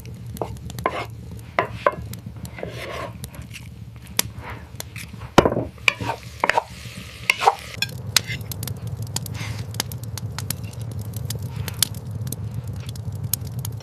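Cooking sounds: a utensil clinking and scraping against a pot, with food sizzling over a steady low rumble.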